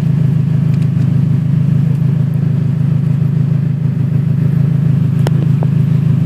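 Race-prepared Toyota Camry's engine idling steadily and loudly, with a couple of small clicks about five seconds in.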